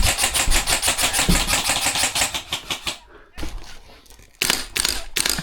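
Airsoft rifle firing full-auto, a rapid even stream of about ten shots a second that stops about three seconds in. After a short pause come a few more single shots and short bursts.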